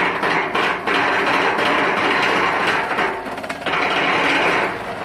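Daedong DPD350T hydraulic vibratory pile driver running at full vibration on a pile, a loud harsh rattle over the steady drone of the excavator's engine and hydraulics. It eases briefly a little past three seconds, comes back, and cuts off near the end.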